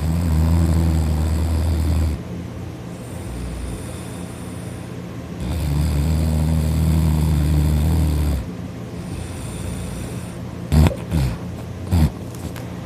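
A person snoring loudly: two long, deep snores of about two to three seconds each, some five seconds apart, with quieter breathing between. Near the end, a few short sharp knocks.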